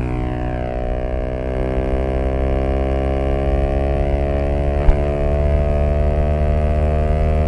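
Zontes U125 scooter's single-cylinder engine, fitted with an aftermarket Black Widow exhaust, running steadily under throttle, its pitch slowly rising as the revs climb. A brief knock about five seconds in.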